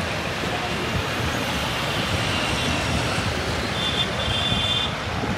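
Steady low rumble of distant city traffic, with a few faint high thin tones in the second half.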